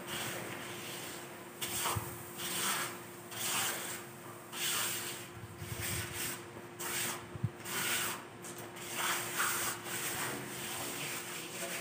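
Hand tool scraping and rubbing across a fresh cement-and-pebble floor finish in repeated irregular strokes, with one sharp tap about halfway through.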